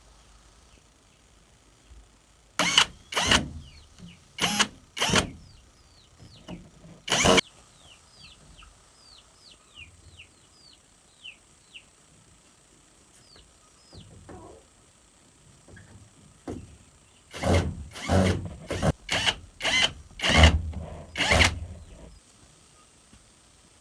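Sharp knocks in two bursts: about six spread over a few seconds, then after a pause about eight in quick succession near the end. Between them a bird gives repeated short falling chirps.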